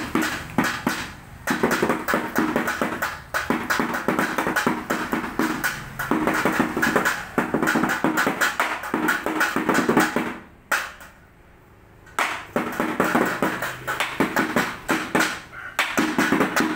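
Lion dance percussion: fast, steady drum and cymbal beats that break off for about a second and a half about ten and a half seconds in, then start again.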